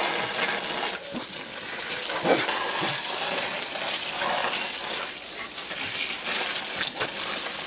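Steady hiss and splatter of a garden hose's water jet spraying onto plants, with a few short sharp sounds about one, two and seven seconds in.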